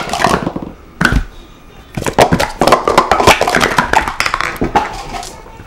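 Plastic speed-stacking cups clattering as they are stacked and unstacked at speed. A short flurry of clicks at the start and a single clack about a second in are followed by a dense run of rapid clicks from about two to five seconds.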